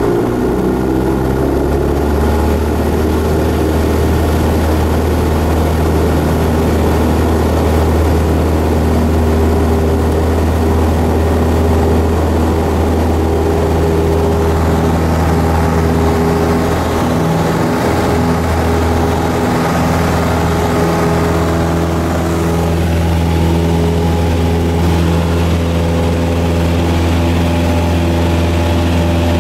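Cessna 172's piston engine and propeller at takeoff power, a loud steady drone heard from inside the cabin through the takeoff roll and liftoff.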